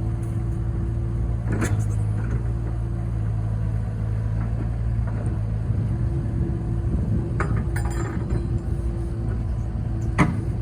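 An engine running steadily at a constant speed, with a few sharp knocks or clanks about a second and a half in, around seven and a half seconds in, and near the end.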